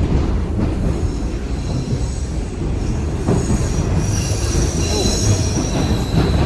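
TTC subway train running through the station, a low rumble with high-pitched wheel squeal on the track that builds a second or so in, peaks past the middle, and fades near the end.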